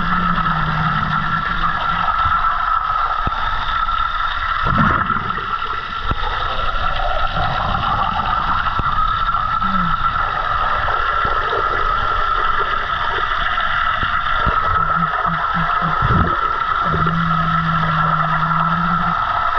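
Steady underwater noise in a swimming pool, with a constant high hum throughout, a couple of brief low whooshes and short low tones.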